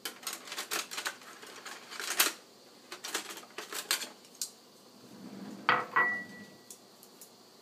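Chopsticks and kitchen utensils clicking and clattering as they are picked out: a string of light clicks, then two louder knocks about six seconds in, one leaving a short ring.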